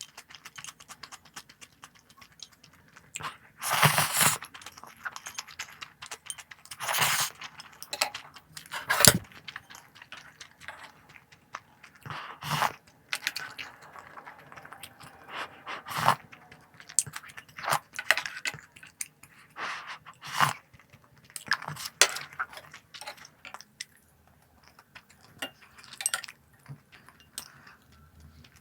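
Crunchy snacks being bitten and chewed close to the microphone: a run of irregular sharp crunches, with a few longer, louder crackly bursts in the first third.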